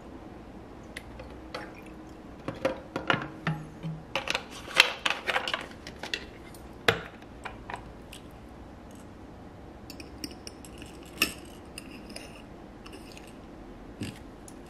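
A pump-top isopropyl alcohol dispenser being refilled and handled: a run of clicks, clinks and taps of plastic and metal, busiest from about two and a half to six seconds in, then scattered sharp clicks and a few squeaks. The dispenser is being refilled because it would not pump out any alcohol.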